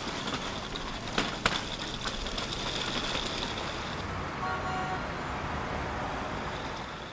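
Steady vehicle running noise, with two sharp clicks a little after a second in and a brief horn toot about four and a half seconds in.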